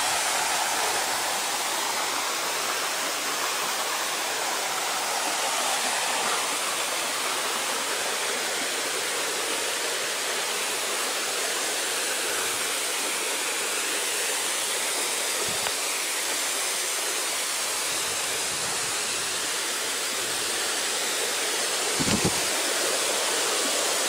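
Steady rushing of Thudugala Ella waterfall water cascading and running over rocks, with a short low thump near the end.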